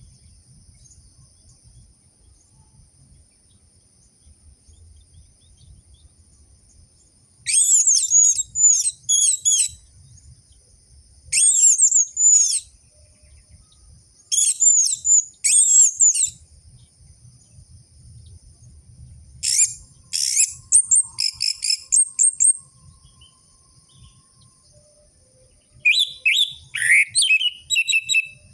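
Orange-headed thrush (anis merah) song, played as a lure to set a caged male singing: about five bouts of rapid, high chattering phrases with pauses between them. A faint steady high tone runs underneath.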